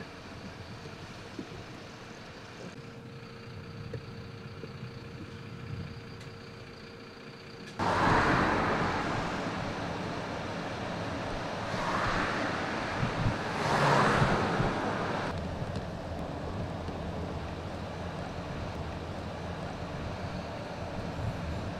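Road traffic noise: a steady rush of vehicles on the road, jumping suddenly louder about eight seconds in, with a few swells as vehicles pass close by, then settling to a steady rush.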